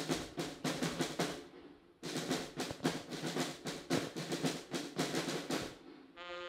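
Military band snare drums playing a rapid rolling cadence. It fades out about a second and a half in, then starts again after a short break. Just before the end a brass chord begins to sound.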